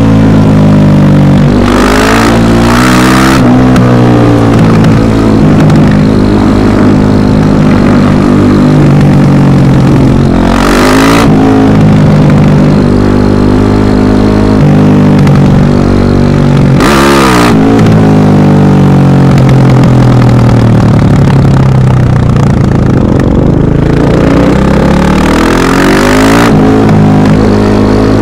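Rally cars driving past at speed with their engines revving hard and changing pitch as they go by. There are several passes, each with a short burst of hiss as a car comes closest.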